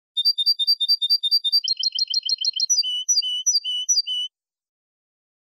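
European goldfinch song of the Málaga copia type, the clean model song used to teach goldfinches and hybrids for competition. A run of about seven repeated clear notes leads into a faster trill, then a slower series of separate notes, each a flat note followed by a falling one. It starts just after the beginning and stops about four seconds in.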